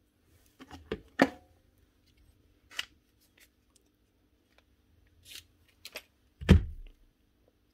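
Small metal nibbler parts and a bit screwdriver being handled and set down on a workbench: a few separate sharp clicks and knocks, a louder one with a short ring about a second in, and a dull thump near the end.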